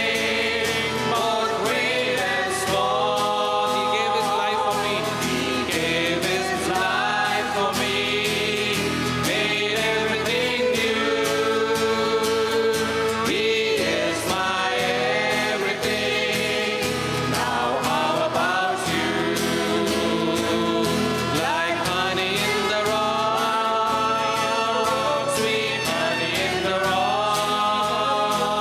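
Gospel worship song: several voices singing together over guitar and keyboard accompaniment, in phrases of a few seconds each.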